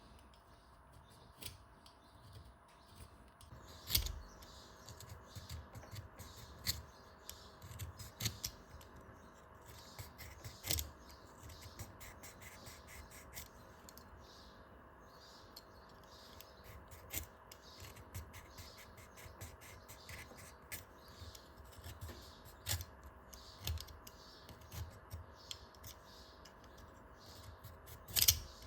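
Utility knife blade shaving a pencil by hand: many short, irregular scraping strokes and small clicks, with a louder sharp click about four seconds in and another near the end.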